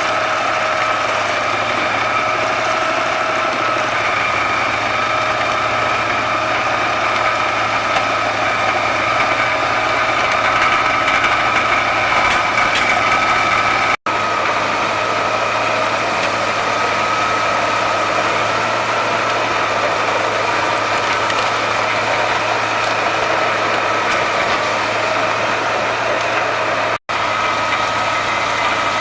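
Wood chipper running steadily, a constant engine hum with a high whine over it. The sound breaks off for an instant about halfway through and again near the end.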